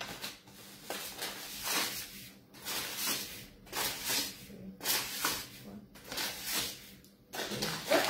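Granulated sugar poured and shaken out of a paper packet into a mixing bowl, a gritty hiss coming in repeated pours about once a second.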